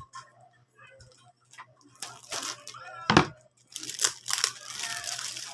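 Plastic packaging being crinkled and torn open, starting about two seconds in, with a few sharper crackles.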